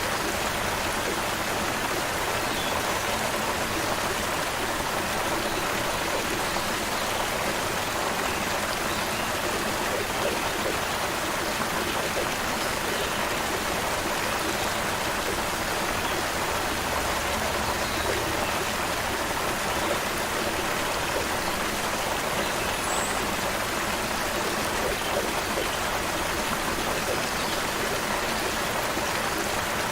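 Creek water flowing with a steady, even rush, and a few faint, brief bird chirps high above it.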